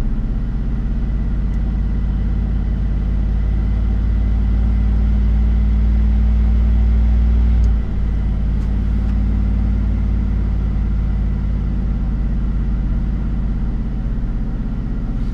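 Supercharged 5.3 L V8 of a Chevrolet Silverado running steadily, held at about 2000 rpm with no load while methanol is sprayed into the intake. Its tone shifts slightly about eight seconds in.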